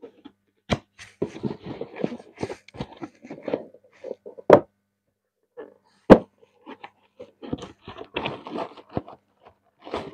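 Cardboard shoeboxes being handled: a slipper packed away and a lid closed, with two sharp thuds about four and a half and six seconds in as a box is set down, then another box opened with tissue paper rustling.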